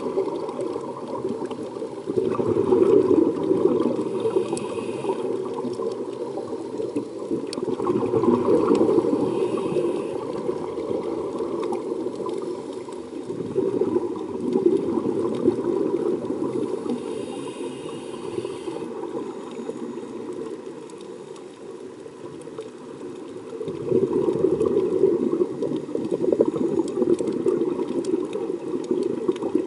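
Scuba regulator breathing heard underwater: the bubbling rumble of exhaled air bubbles comes in long surges every several seconds, easing off between breaths.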